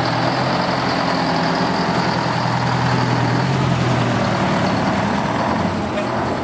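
Diesel engine of a conventional semi-truck tractor unit running as the truck drives slowly past. Its low engine note weakens about four seconds in as the truck pulls away.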